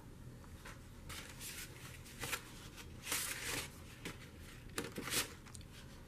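Paper rustling in several short, soft brushes as a stack of Daniel Smith watercolour dot sample cards is handled and leafed through.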